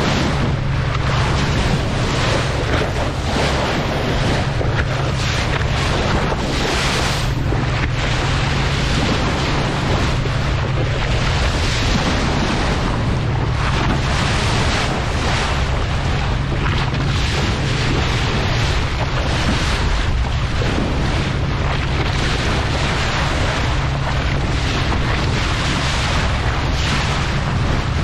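Fishing boat at sea: a steady low engine hum under wind buffeting the microphone and the wash of the sea.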